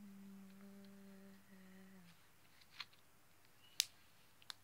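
A girl humming one held note of a song for about two seconds, then three sharp clicks, the loudest a little before the end.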